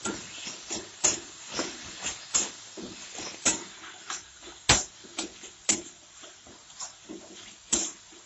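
Metal spatula scraping and knocking against a kadai as spiced onion-tomato masala is stirred and fried down (bhuna), over a steady sizzle of oil. Scrapes come irregularly, about one or two a second, with a few sharper knocks.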